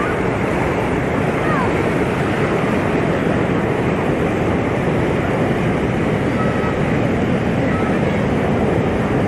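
Sea surf: a steady, unbroken rush of breaking waves.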